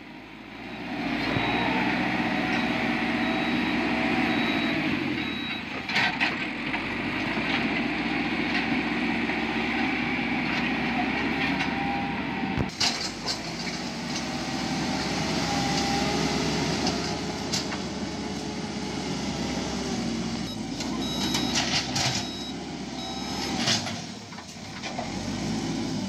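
JCB 3CX backhoe loader's diesel engine running, rising and easing several times as the loader works. A high, broken beeping comes in twice, and a few sharp knocks sound.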